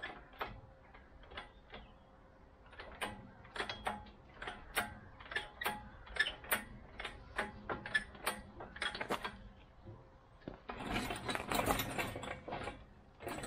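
Hydraulic engine hoist being pumped by its handle to lift a heavy load: a run of regular clicks about twice a second. Near the end, a couple of seconds of rough scraping and rumbling as the loaded crane is pushed and the load swings clear.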